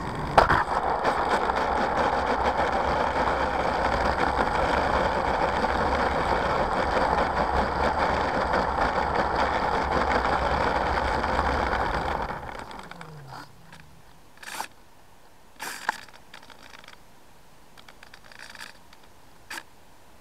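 The P-51D Mustang model plane's motor and propeller running as it taxis on asphalt, heard from the onboard camera. About twelve seconds in the motor winds down and stops, followed by a few light clicks.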